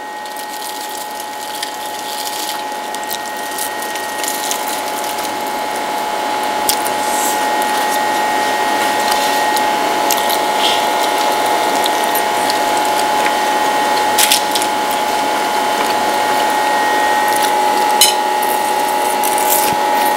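A continuous rapid rattling buzz with a steady high tone running through it, swelling gradually louder, with a few faint clicks scattered over it.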